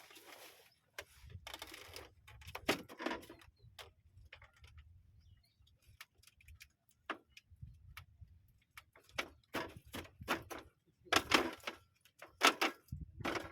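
Irregular clicks, taps and brief rustling bursts, the kind made by handling small hard objects, with a faint low rumble in between.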